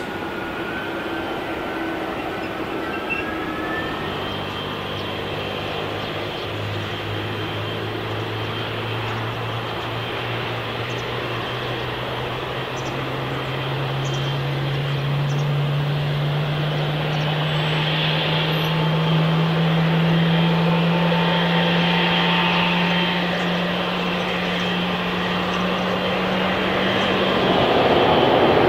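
Airliner engine noise: a steady rushing sound with a low hum that slowly rises in pitch for about twenty seconds and stops shortly before the end, as the noise swells.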